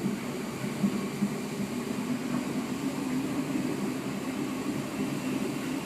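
Steady rumble of a Merseyrail electric train running between stations, heard from inside the carriage, with a few faint knocks.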